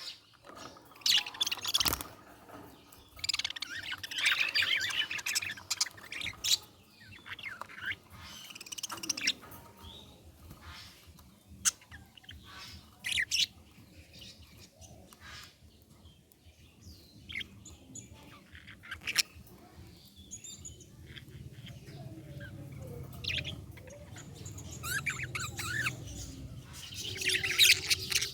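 Budgerigars chirping and chattering in irregular bursts, with short squawks and quieter gaps between the bouts.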